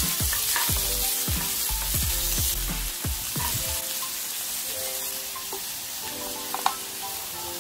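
Cubes of pork tenderloin sizzling as they fry in olive oil in a nonstick frying pan, stirred with a wooden spatula. The sizzle is strongest in the first few seconds and eases after that, with one sharp click about two-thirds of the way through.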